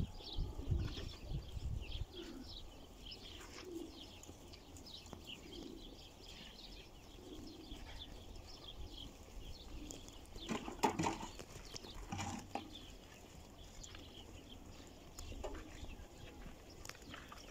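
Faint bird calls: many short, high chirps repeating throughout, with some soft low cooing. Two louder calls come about eleven and twelve seconds in, and there is a low rumble in the first two seconds.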